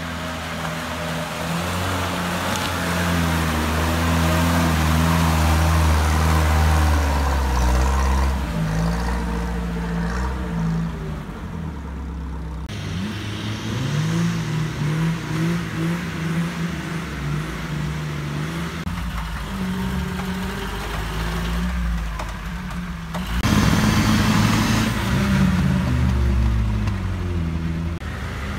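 Off-road 4x4 engines, a UAZ-469 among them, revving and labouring through mud, pitch rising and falling with the throttle. The sound changes abruptly twice, about halfway through and again later, where it becomes louder.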